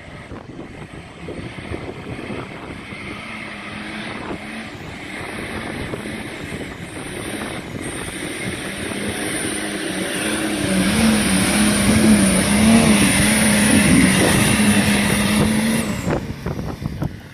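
Nissan Patrol GR Y60's 2.8-litre straight-six turbodiesel working under load as it pulls up a muddy slope, its note wavering and growing louder as it comes closer. A high steady whine sits over the middle and later part.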